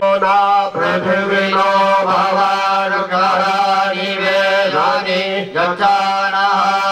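Mantra chanting in long, held notes over a steady drone, with brief breaths or breaks about a second in and near the end.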